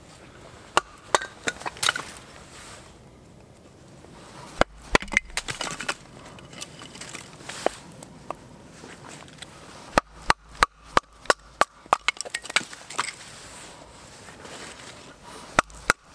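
Fixed-blade knife splitting small sticks of wood into kindling on a chopping stump: several bursts of sharp wooden knocks and cracking as the sticks split.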